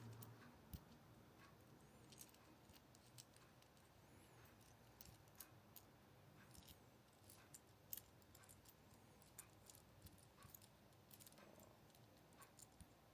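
Faint, irregular light clicks and taps from camera rig parts being handled and fitted, with one sharper click about eight seconds in.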